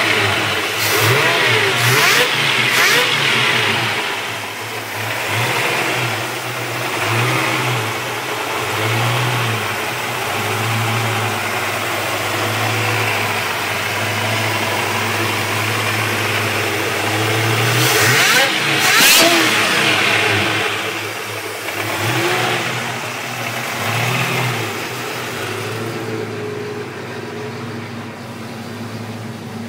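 Hot-rod engine of a 1965 GMC Suburban, topped with Edelbrock carburetors, idling with a pulsing beat. It is revved in two short blips near the start and once harder about 18 seconds in, then settles back to idle.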